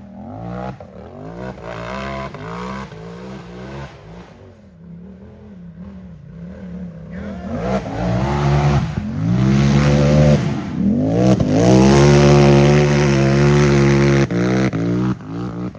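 Race UTV engine revving hard: short uneven throttle blips at first, then from about halfway repeated climbs to high revs and drops, loudest near the end before it backs off.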